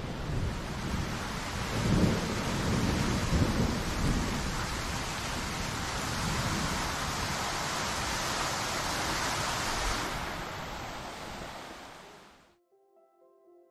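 Steady, loud rushing noise with a low rumble underneath, like wind or rain on the microphone. It fades from about ten seconds in and stops shortly before the end, when soft, quiet background music begins.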